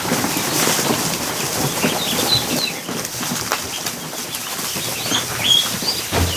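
A crowd of ducklings in a plastic kiddie pool, with a dense, steady clatter of scrabbling feet and wings. A few high duckling peeps come about two seconds in and again near the end.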